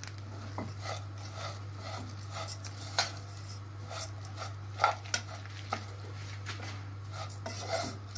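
Metal spoon stirring vermicelli toasting in ghee in a stainless steel pot, scraping and clinking against the pan as the strands are turned to brown them. Two sharper knocks come about three and five seconds in, over a steady low hum.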